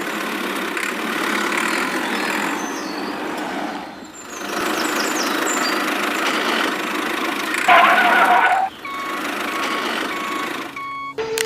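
A small motor runs steadily, dipping briefly about four seconds in. Near the end a short, loud horn-like tone sounds, followed by a series of short, even beeps.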